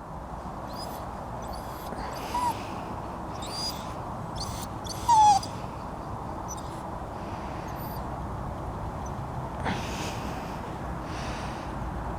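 Cockapoo dog whimpering: two short high whines, about two and a half and five seconds in, the second falling in pitch and louder. A steady background hiss runs under them.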